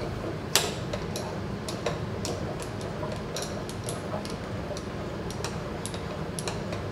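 Milling machine's knee crank being turned to lower the table: a run of irregular light clicks and ticks, one louder click about half a second in, over a steady low hum.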